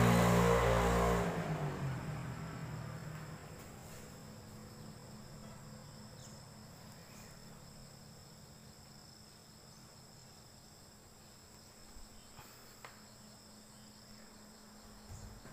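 Faint, steady high-pitched chirring of insects. A louder low rumble at the start fades away over the first few seconds, and there are a few soft clicks near the end.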